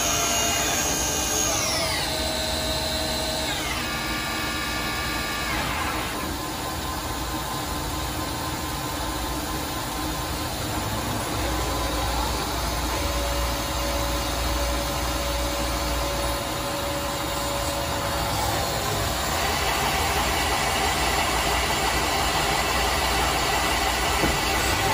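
Tsugami SS-20 Swiss-type CNC lathe running a machining cycle. High spindle whines step down in pitch and drop away in the first six seconds, then give way to a steady hiss of coolant spray and machine hum, with a low drone for a few seconds in the middle.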